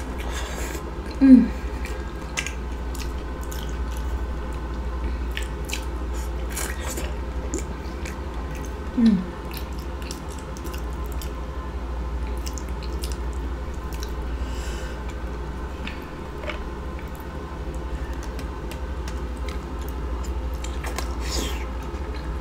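Close-up chewing, biting and wet mouth smacking while eating a buttery seafood boil, with many small scattered clicks. Two short voiced 'mm' sounds come about a second in and about nine seconds in, over a steady low hum.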